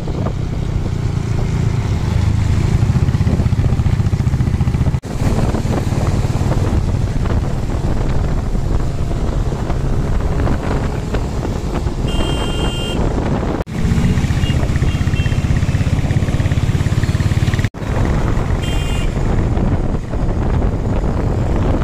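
Steady, loud vehicle engine and road noise, broken by three abrupt cuts, with a short horn toot a little past halfway and another near the end.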